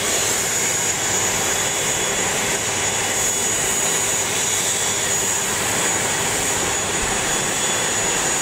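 Aircraft engine noise on an airport apron: a steady jet-like rush with a constant high-pitched whistle, unchanging throughout.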